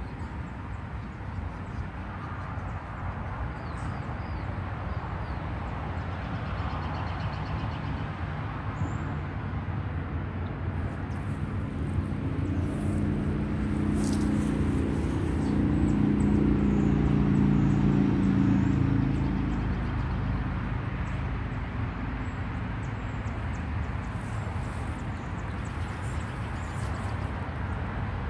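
A motor vehicle's engine passes by, growing louder through the middle and fading away after several seconds, over a steady low outdoor rumble.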